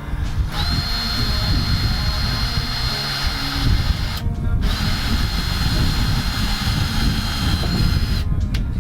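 Power drill running at speed, drilling the mounting holes in the underside of a car's sill: two long runs of about three and a half seconds each, with a brief stop between them.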